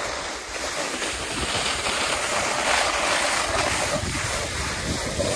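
Wind rushing over the microphone with an uneven low rumble from riding fast over rough ground.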